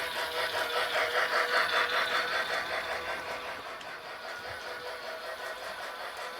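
Lionel Penn Flyer battery-powered toy steam locomotive running on its track, its built-in train sounds pulsing rhythmically over a steady motor hum. It swells louder for a moment about a second in, then settles back.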